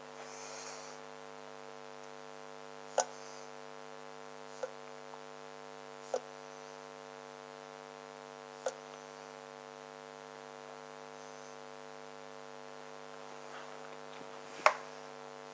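Steady electrical mains hum, with five short sharp clicks or light knocks spread through it, the last one, near the end, the loudest.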